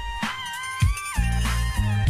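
Background music: a beat with bass and drums under a lead melody that slides between notes.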